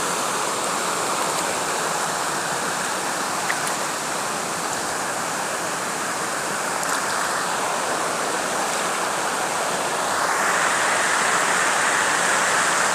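Steady rush of water from Spread Eagle Falls, a wide waterfall, growing a little louder about ten seconds in.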